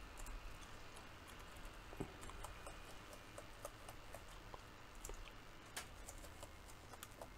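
Lenovo laptop keyboard keys pressed one at a time: faint, irregular clicks as each key along the rows is typed in turn to test that they all work.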